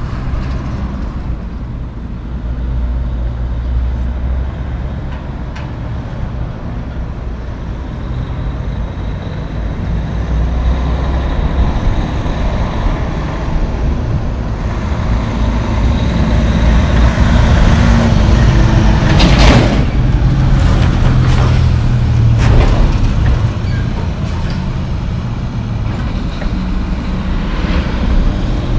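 Heavy diesel trucks driving past with a steady low engine drone. It grows louder through the middle as a loaded dump truck passes, with two sharp short noises about two-thirds of the way through.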